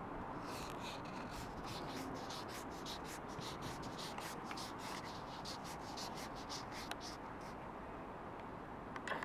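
A quick run of short scratchy rubbing sounds, about four a second, starting about half a second in and stopping about seven and a half seconds in, over a steady low hiss.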